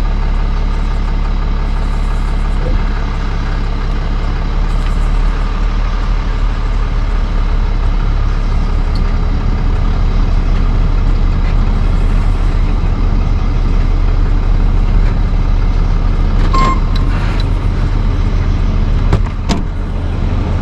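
Truck engine running at low speed, heard from inside the cab as a steady low hum. A short beep sounds once near the end, followed by a couple of sharp clicks.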